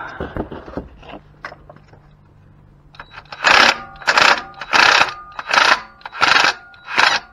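Parkside cordless impact wrench on the accessory-belt tensioner pulley bolt, fired in short repeated bursts about every 0.7 seconds from about three and a half seconds in. There are a few small handling clicks before it.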